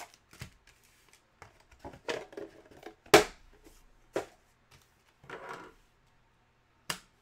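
Trading-card packs being pulled from a cardboard hobby box and set down in stacks on a wooden table: a few sharp knocks, the loudest about three seconds in, and a brief rustle of the pack wrappers.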